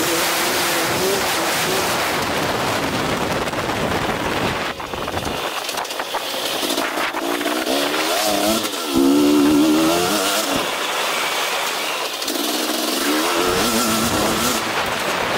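KTM 250 SX-F four-stroke single-cylinder motocross engine under riding load, its pitch rising and falling as the throttle opens and closes, with heavy wind rushing over the camera microphone. The throttle closes about a third of the way in and again near the end, and the engine revs back up with a rising pitch and a jump in loudness around the middle.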